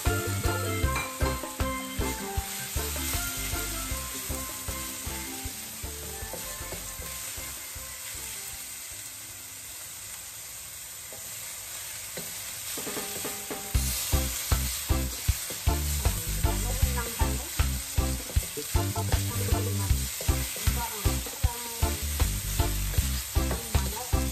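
Marinated chicken pieces sizzling as they are stir-fried in a stainless steel wok, turned with a wooden spatula. Background music with a steady beat plays over it and drops away for a few seconds midway.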